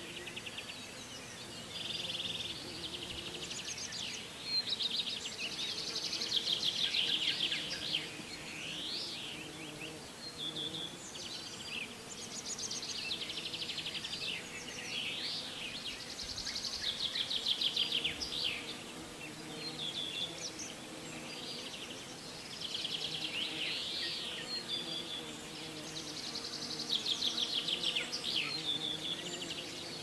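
Songbirds singing with repeated chirps and fast trills, over a faint low steady buzz of insects.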